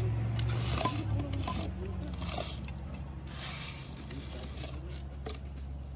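Wet concrete being scraped out of the corner of a wooden step form, in short scraping strokes, over a steady low engine hum.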